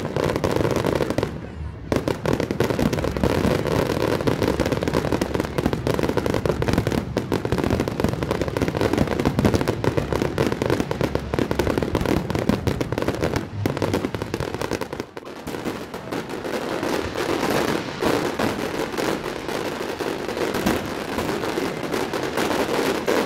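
Fireworks going off in rapid, overlapping succession: a continuous barrage of bangs and crackling, with brief lulls about a second and a half in and around fifteen seconds.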